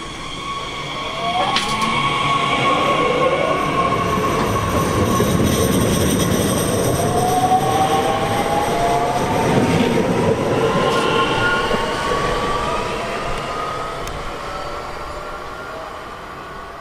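Class 442 Talent 2 electric multiple unit pulling away past the platform, its traction motors whining and rising in pitch as it gathers speed, over the rumble of wheels on rail. The sound fades toward the end as the train draws away.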